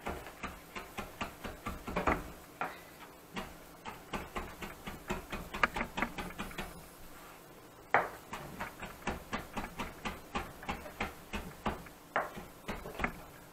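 Kitchen knife chopping parsley finely on a cutting board: quick repeated knocks of the blade on the board, about four or five a second. There is a short pause about seven seconds in, then a sharper knock before the chopping resumes.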